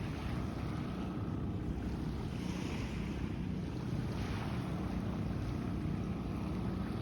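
Small waves washing onto a sandy beach, with steady wind noise on the microphone. A wave washes in more strongly about two and a half seconds in.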